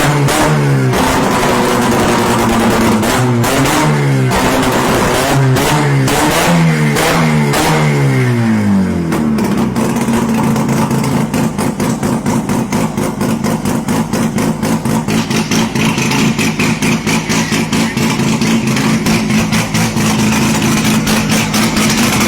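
Rotary (Wankel) car engine being revved over and over, its pitch sweeping up and falling back for about nine seconds, then settling into a choppy, rapidly pulsing idle.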